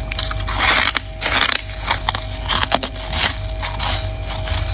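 Freezer frost being crunched close to the microphone: two longer crunches in the first second and a half, then a string of short, sharp crackles.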